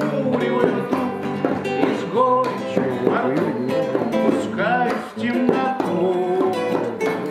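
Two acoustic guitars playing a song together, with a man singing over them.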